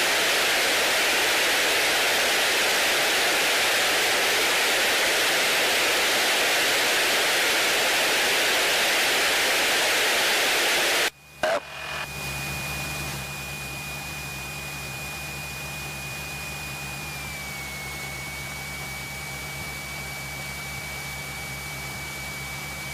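Steady hiss of static on the cockpit intercom feed, which cuts out suddenly about halfway through. It gives way to a quieter steady low hum with a thin high-pitched whine that dips slightly in pitch a few seconds later.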